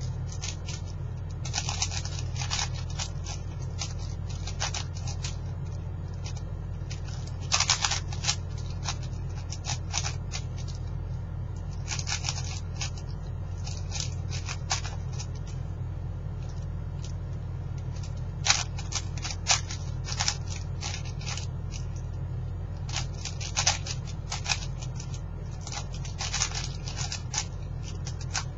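4x4x4 speed cube being turned fast by hand: irregular bursts of plastic clicking and clacking as the layers turn, with short pauses between bursts. A steady low hum runs underneath.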